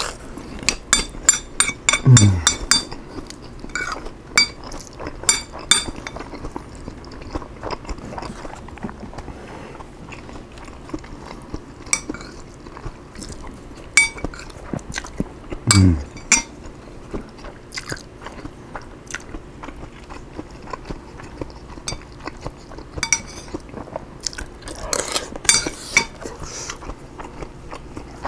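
A person chewing a mouthful of broccoli fried rice topped with seaweed squares, with wet mouth clicks and crunching, busiest in the first few seconds. Twice, a short low hum falls in pitch.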